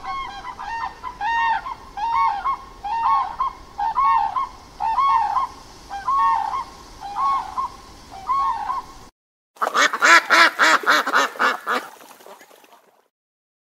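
Cranes giving a series of about a dozen honking calls, each rising and falling in pitch. After a short break comes a second bird's rapid pulsed run of calls, from a ruddy shelduck, lasting about three seconds and fading out.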